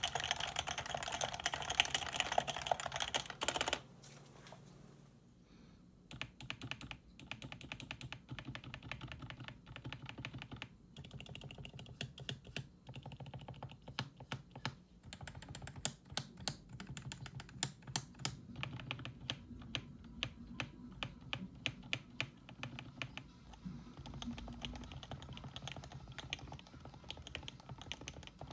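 Typing on an HHKB Professional 2, a Topre electrostatic capacitive keyboard. The first stretch is fast continuous typing on the unlubricated switches, and it cuts off a little under four seconds in. After a short pause, typing resumes on the same board with its switches lubricated with Krytox 105 oil, as a run of separate sharp key strokes.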